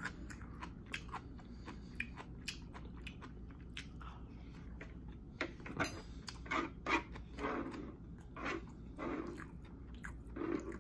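A person chewing a mouthful of chicken and rice close to the microphone, with many small wet mouth clicks and smacks. The chewing gets louder about halfway through.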